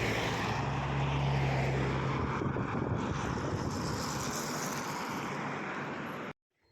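Helicopter running close by: a loud, steady rush of rotor and engine noise over a low hum, cutting off suddenly near the end.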